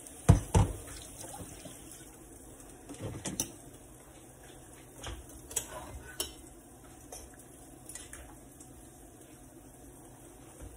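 Metal kitchenware clanking and clinking against stainless pots and a frying pan: two loud clanks about half a second apart right at the start, then scattered lighter taps and clinks.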